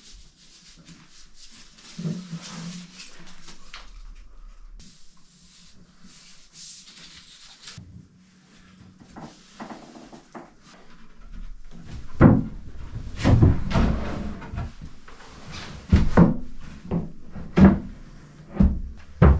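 Wooden cabin sole panels being handled and set down onto the floor beams, giving a series of loud hollow knocks and thuds in the second half. Before that there is quieter rustling and a few soft knocks while adhesive gasket tape is laid on the beams.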